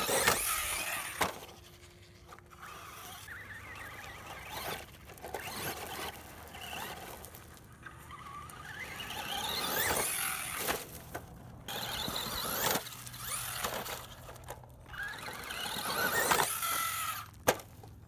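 RC monster truck's motor whining, rising in pitch each time the throttle is opened, several times over, with tyres scattering gravel in between. A few sharp knocks come as the truck hits the ground, one shortly after it leaps off a berm.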